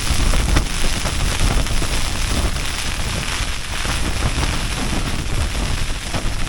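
Heavy rain beating on a tent's fly in strong gusting wind, with the gusts buffeting the shelter and the microphone in a steady loud rumble.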